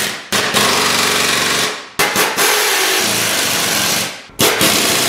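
Pneumatic impact wrench hammering in three bursts, each one to two seconds long, running down the engine's mounting bolts.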